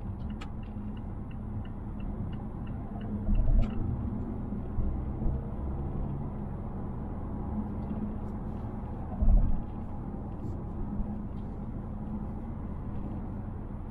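Cabin noise of a 2020 Mazda Atenza 2.5L at road speed: a steady low road and tyre rumble. Light evenly spaced ticks, about three or four a second, run through the first three seconds. Two heavy thumps over road bumps come about 3.5 s and 9 s in, with faint sharp clicks near them, the kind of interior rattle the owner complains this car makes whenever the body is jolted.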